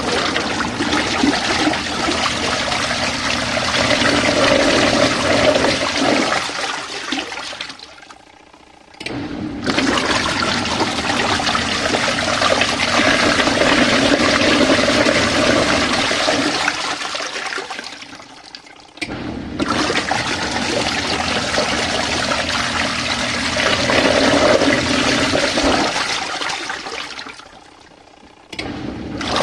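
Compact RV washing machine agitating its wash water. The churning runs for about eight seconds, eases off, stops briefly and starts again, three times over, as the washer's motor pauses and reverses.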